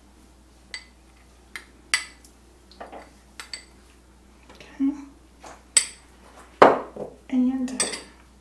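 A metal spoon clinking and scraping against a small glass bowl as grated ginger is tapped out into the crockpot: a string of sharp, ringing clinks. A louder knock comes late on, as the bowl is set down.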